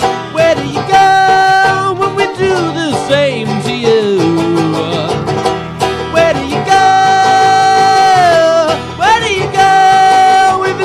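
Live acoustic band: a banjo picked and an acoustic guitar strummed, with voices singing long held notes without words.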